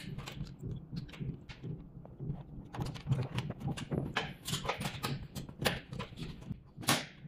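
Plastic slat-top conveyor chain clicking and clattering as it is pushed by hand along a stainless-steel conveyor track, with irregular clicks throughout over a low steady hum.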